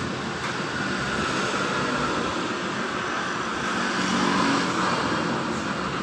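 Samono SW-R1 electric kettle heating water, a steady rushing hiss.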